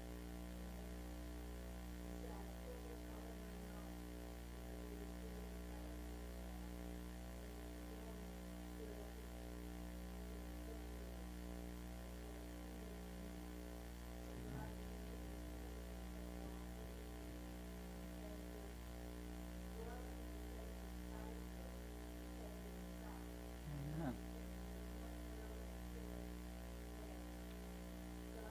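Steady electrical mains hum, with faint indistinct sounds and a brief low knock midway and another near the end.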